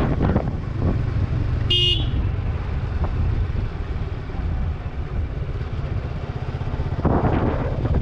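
Suzuki Gixxer 155's single-cylinder engine and exhaust running steadily at low speed as the bike slows, with one short horn toot about two seconds in. Wind rushes on the microphone near the end.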